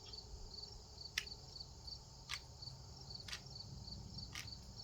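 Crickets chirping steadily and faintly, short high chirps about three a second, with four sharp ticks roughly a second apart.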